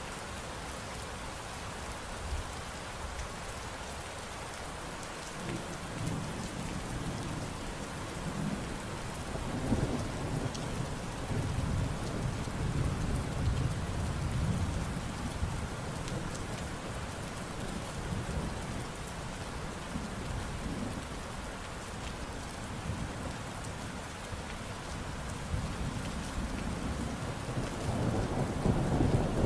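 Steady rain falling, with low rolling thunder rumbling in about six seconds in, swelling around the middle and again near the end.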